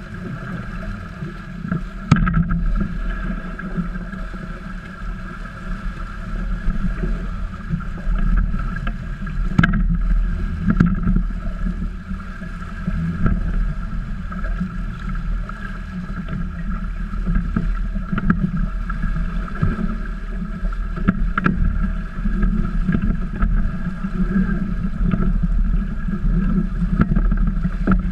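Trimaran under sail: a steady rush of water along the hulls and wind on the boat-mounted camera, swelling and easing with the boat's motion, with a few sharp knocks from gear on deck.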